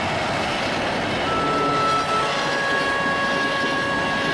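A real train running on the rails, a steady rumbling noise. A couple of thin, steady high tones come in about halfway through.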